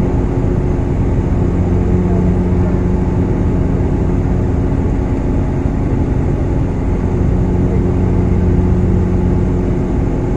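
Airliner cabin noise in flight: a steady, even rush of air and engine noise with a low steady hum beneath it.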